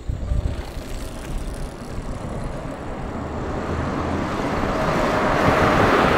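Passing vehicle noise: a low rumble and a rushing hiss that grow steadily louder.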